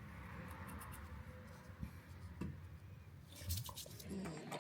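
A steady low electrical hum that cuts out about four seconds in, with a few light clicks near the end.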